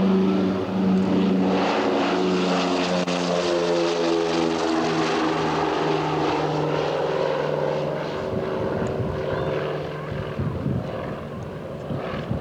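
Lockheed Neptune's twin radial piston engines and propellers droning as it passes. The engine note falls steadily in pitch as the aircraft goes by and draws away, and the sound eases off over the last few seconds.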